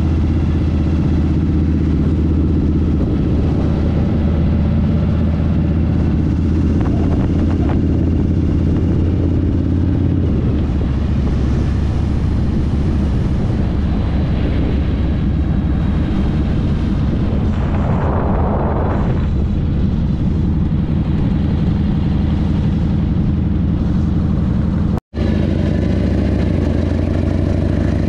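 The air-cooled Evolution V-twin of a 1999 Harley-Davidson Fat Boy runs at a steady pace while riding. The sound cuts out for an instant near the end.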